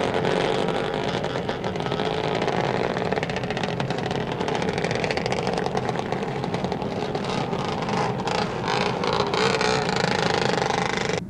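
Traffic sound effect: motor vehicles running and driving on a road, at a steady level, cut off abruptly at the end.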